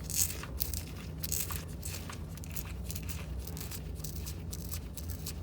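Irregular rustling and crackling handling noises over a steady low hum.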